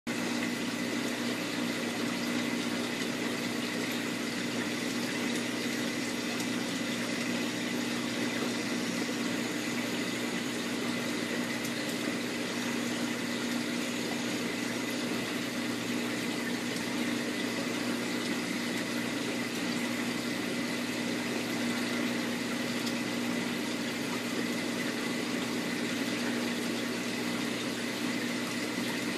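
Aquarium pump running with a steady low hum over the constant rush of circulating water.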